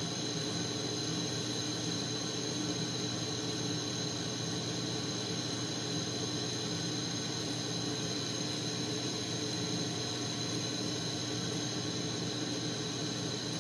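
Propane-oxygen glassworking torch burning with a steady, even hiss while glass is heated in its flame.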